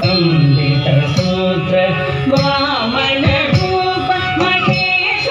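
Carnatic dance music: a singer's voice over melody instruments, with regular hand-drum strokes keeping the rhythm.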